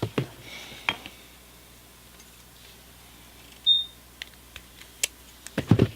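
Scattered metal clicks from folding multi-tools being handled, with a brief high ping a little past the middle and a louder clatter near the end.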